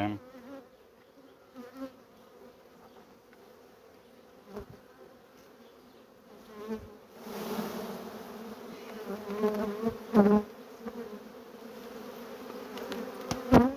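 Honeybees buzzing in a steady hum over an open hive as a bee-covered honey frame is lifted out; the buzzing grows louder about halfway through. A few sharp knocks sound along the way, the loudest near the end.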